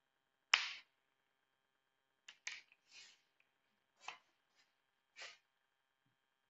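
A handful of short scratchy strokes. The first and loudest comes about half a second in, and the rest are spread between about two and five and a half seconds.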